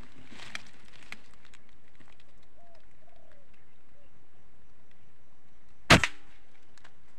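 Air rifle firing a single shot about six seconds in: one short sharp crack with a brief tail. Before it, a few faint short bird calls.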